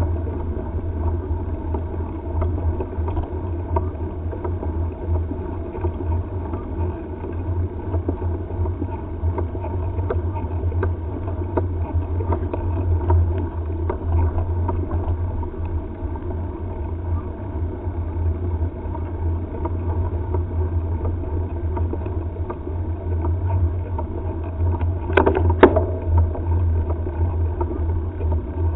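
Riding noise on a mountain-bike headcam's microphone: wind and tyre rumble on asphalt, a steady low rumble. A couple of sharp knocks near the end.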